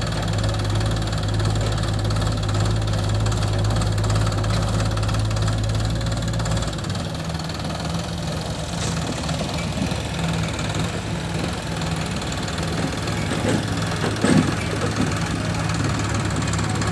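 Sonalika MM 45 tractor's diesel engine running with a steady, knocking note. About halfway through the engine note changes, and a single thump sounds near the end.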